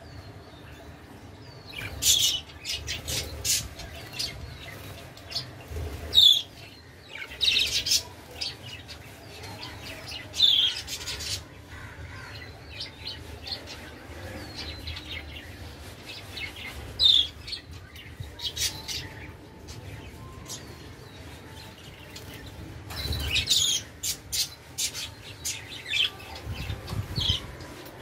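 Budgerigars chirping and squawking in short, sharp calls that come in clusters every few seconds, mixed with brief sharp rustles and clicks.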